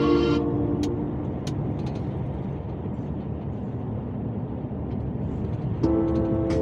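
Truck driving through a road tunnel, heard from the cab: a steady rumble of engine and road noise, with a few sharp clicks in the first two seconds. Background music stops just after the start and comes back about a second before the end.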